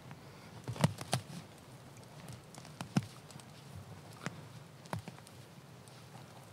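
Gloved hands tearing up a thick clump of moss from the forest floor, with soft rustling and a handful of sharp snaps and crackles, the loudest about a second in.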